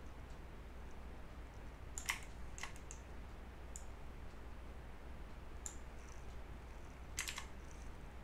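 Scattered clicks of a computer mouse and keyboard: single clicks two to six seconds in and a quick flurry of clicks near the end, over a faint steady low hum.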